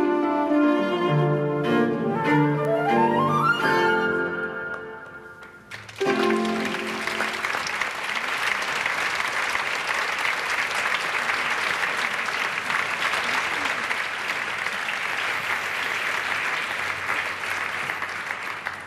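Orchestral ballet music with a rising run, ending on a final chord about six seconds in. A theatre audience then applauds steadily until just before the end.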